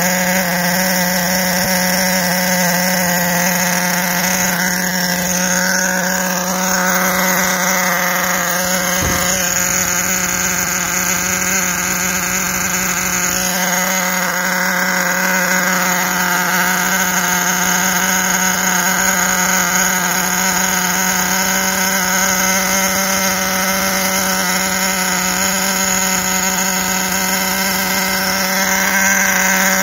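HPI K4.6 nitro engine of a radio-controlled truck running at a steady speed, a constant buzzing note with many overtones that hardly changes pitch. The engine has been freshly repinched and its three-needle carburettor tuned, and it is running well.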